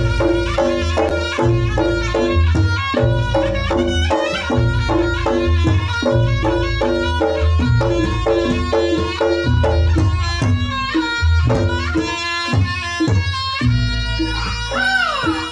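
Reog Ponorogo gamelan ensemble playing loudly: a shrill, wavering reed melody over kendang drum beats and a repeating pattern of pitched gong strokes, with a heavy low end. Near the end the melody slides downward.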